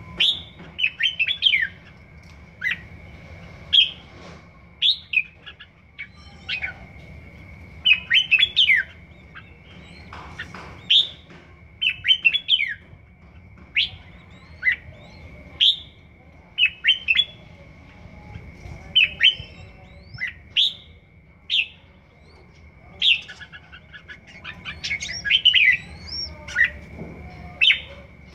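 Red-whiskered bulbul singing short phrases of quick sweeping whistled notes, one every second or two. It is a first-season bird practising its song.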